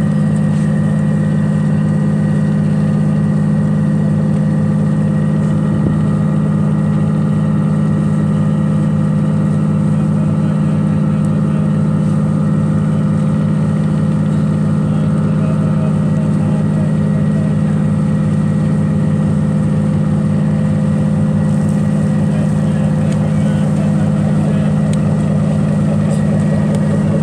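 A riverboat's engine running steadily, one constant low drone that neither speeds up nor slows down.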